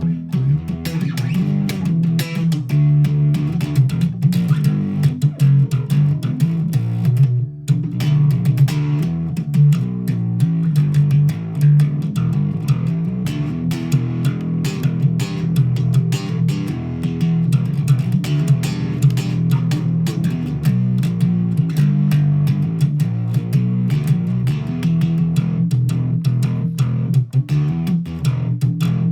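Background music: guitar-led instrumental with a prominent bass guitar line.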